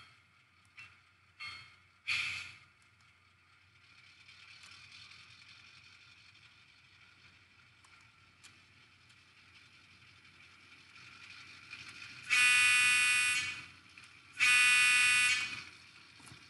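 LokSound 5 sound decoder playing an EMD 16-567BC diesel sound project through its speaker: a few strokes of the locomotive bell ending about two seconds in, then the diesel prime mover running quietly, then two horn toots of about a second each near the end.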